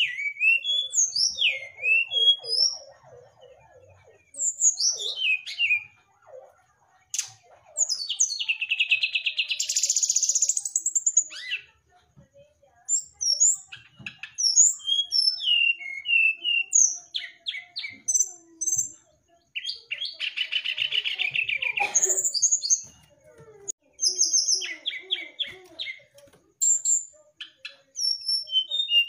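Brown-chested jungle flycatcher singing: a run of short, clear whistled notes that slide up and down in pitch, broken by a long, fast trill about eight seconds in and another about twenty seconds in.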